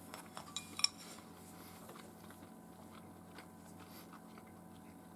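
Mouth noises of someone chewing food, with a few light clicks of chopsticks against a porcelain dish in the first second, the sharpest just before a second in; after that only a faint steady hum and tiny ticks.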